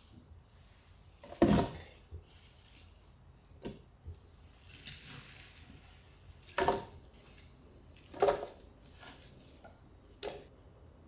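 Kitchen handling sounds from cooking prep: about five separate knocks and clunks a second or two apart, the loudest about a second and a half in, with a short soft hiss around the middle.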